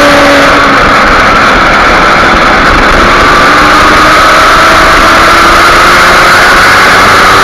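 Kawasaki Ninja 250R's parallel-twin engine running at high revs, heard from onboard under heavy wind rush on the microphone. The engine note sags a little early on, then climbs slowly as the bike leans through a corner and drives out.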